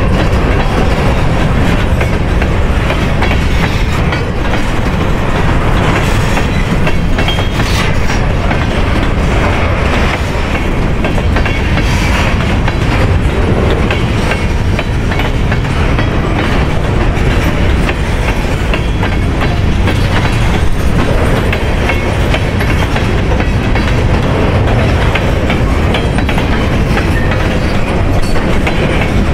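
Empty covered hopper cars of a Union Pacific grain train rolling past close by: a loud, steady rumble with the clickety-clack of steel wheels over the rail joints.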